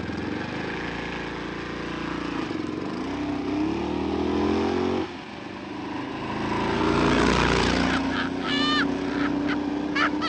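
Small bubble-car engine accelerating, its pitch climbing, dropping away about halfway through, then climbing again. Near the end a few short high-pitched sounds cut in.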